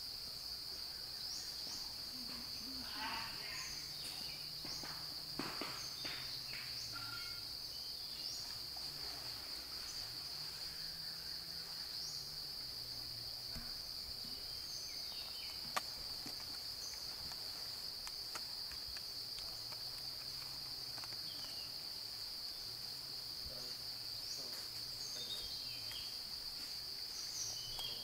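Steady, unbroken high-pitched drone of insects in the forest, with a few faint short chirps scattered through it and a single sharp click about 16 seconds in.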